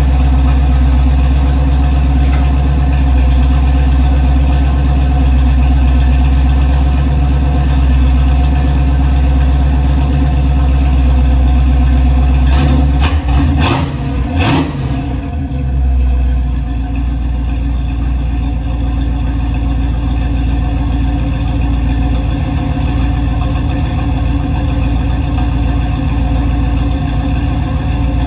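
Chevy 350 small-block V8 idling steadily. About halfway through comes a short cluster of knocks, and the engine then settles to a lower, quieter idle.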